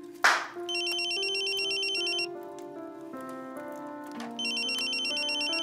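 Mobile phone ringtone: a fast electronic trill that rings twice, over soft background music with long held notes. A sharp clack sounds just before the first ring and is the loudest thing.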